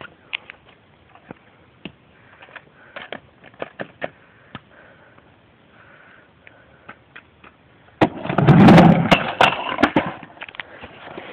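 Scattered light clicks and taps, then about eight seconds in a skateboard's wheels roll loudly over rough concrete for about two seconds, with sharp clacks, before tailing off.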